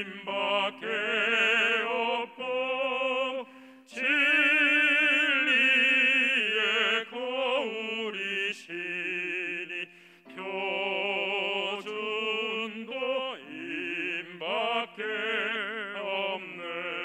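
A single singing voice with strong vibrato sings a slow Won Buddhist hymn (seongga) in long held notes, ending on a sustained note near the end.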